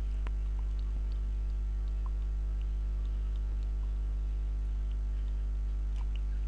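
Steady electrical mains hum, about 50 Hz with a ladder of overtones, unchanging throughout, with a few faint scattered ticks over it.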